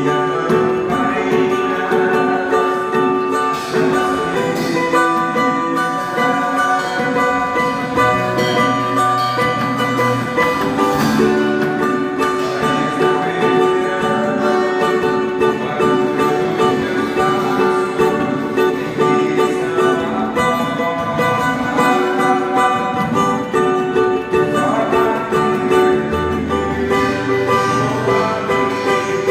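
Instrumental worship music: a plucked string instrument, guitar-like, plays over long held chords, with deep bass notes entering twice.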